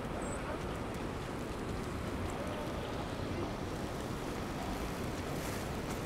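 Steady city street noise at night: a constant rushing hiss over a low rumble, with no single event standing out.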